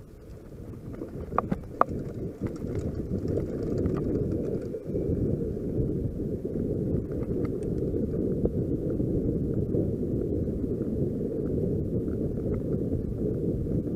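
Wind buffeting the microphone of a handlebar camera on a mountain bike riding fast, with the rumble of the tyres over grass: a steady low rumble that grows louder over the first few seconds and then holds. A couple of sharp knocks from the bike rattling over bumps come about one and a half to two seconds in, with small ticks scattered after.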